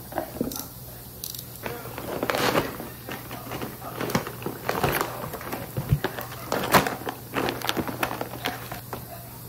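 Irregular taps, clicks and clatter of small objects being handled, with some rustling, over a faint steady hum.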